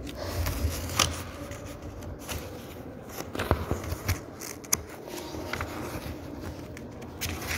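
Rustling and scraping handling noises, with about half a dozen sharp clicks at irregular intervals.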